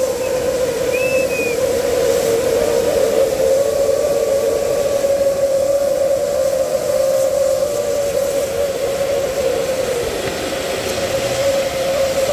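A kambam, a tall tower of fountain fireworks with ground fountains around it, burning: a loud, steady rushing hiss with a sustained whistling tone through it.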